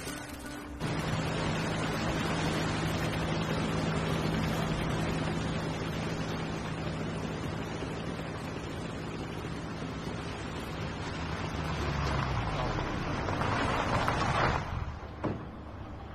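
A small boat's motor runs with a steady low hum over water and wind noise. The hum fades about twelve seconds in, a louder rush of noise follows, and it cuts off sharply near the end.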